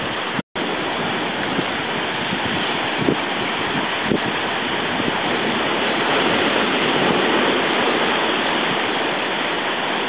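Seawater surging over rocks and washing into a rocky tide pool: a steady rush of surf that swells a little past the middle. The sound cuts out for an instant about half a second in.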